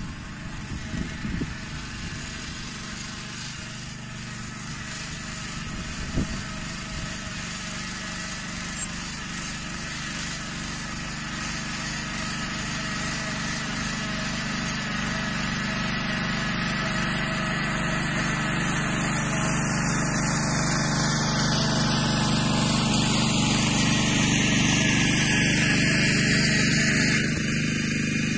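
Yağmur YET 300 walking tractor's engine running steadily under load as it tills soil, growing gradually louder as it comes closer. A few short knocks in the first seconds.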